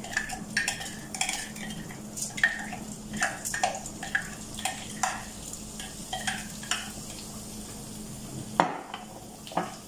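Washed rice frying in hot oil in a frying pan with a faint sizzle, over repeated short clinks and taps of a cup against the pan as the rice is shaken out; the loudest knock comes near the end.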